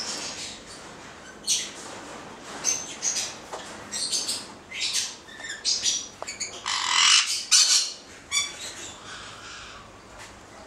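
Yellow-thighed caique parrots giving a run of short, high-pitched squawks and whistled notes, with the loudest and longest harsh call about seven seconds in.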